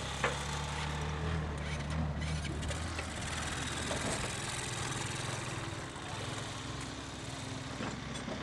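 Small ATV (quad bike) engine running at low speed as it rolls past, a steady engine hum. A single sharp click sounds just after the start.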